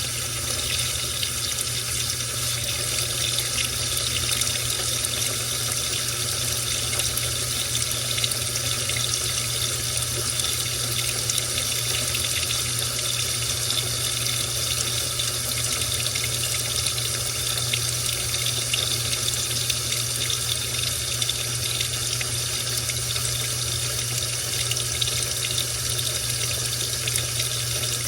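Washing machine with water running steadily, a continuous rush over a steady low hum.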